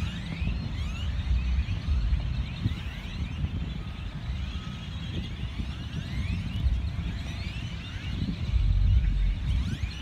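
A large flock of great-tailed grackles calling together: a dense chorus of overlapping rising, squeaky whistles, over a low rumble.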